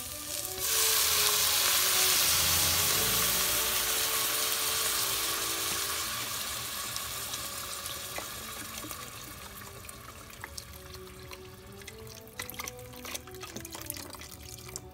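Vegetable broth poured from a carton into a hot pot of butter-sautéed onions: a loud sizzling hiss starts about a second in and gradually dies away as the liquid cools the pot.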